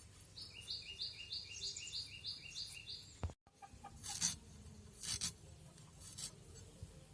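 A bird calls a quick run of about nine identical high two-part chirps. After a cut, a knife scrapes the skin off fresh ginger in a few short scraping strokes.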